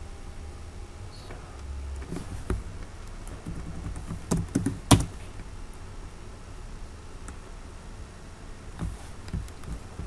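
A few separate computer keyboard keystrokes, with the loudest about five seconds in and another small cluster near the end, over a steady low background hum.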